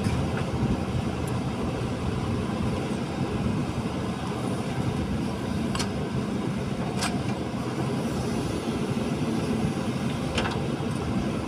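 JCB 3DX backhoe loader's diesel engine running steadily under load while the backhoe digs and swings, with a few sharp knocks about six, seven and ten seconds in.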